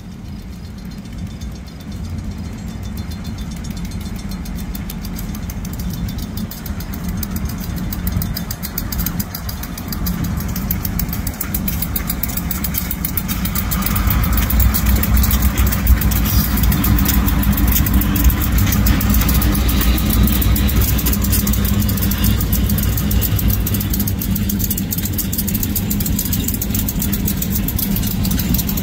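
Two Great Lakes Central diesel locomotives rolling past at low speed, their engines a steady low rumble. The rumble grows louder as they approach, is loudest about halfway through as they pass close by, then eases a little.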